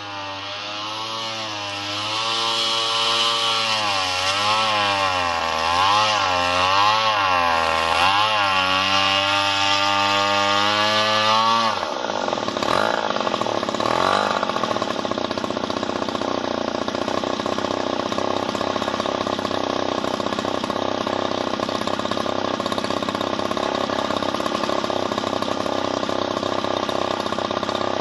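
Small RC model-airplane engine running, its pitch swinging up and down for about the first twelve seconds, then throttled back sharply to a steady idle.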